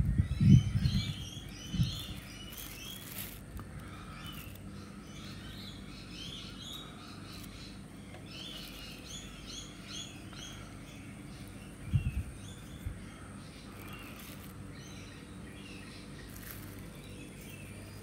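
Birds chirping in short runs of high notes, over a faint steady high tone. Dull low thumps come near the start and again about twelve seconds in.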